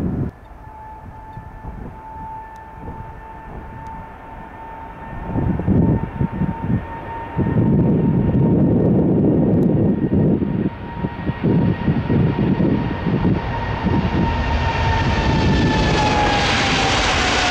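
Boeing 777-300ER's GE90 turbofan engines on the runway: a steady fan whine over an uneven low rumble. Near the end the engines spool up to takeoff power and a rising roar builds, while the whine falls in pitch as the jet rolls past.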